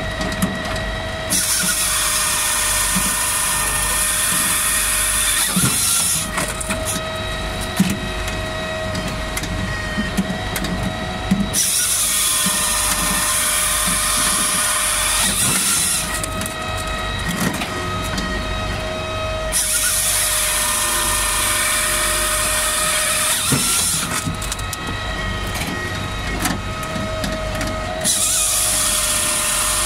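Palax KS 35 firewood processor running, its circular saw cutting through logs four times, about nine seconds apart. Each cut is a loud hissing rasp lasting several seconds. Between cuts the machine runs on with a steady drone.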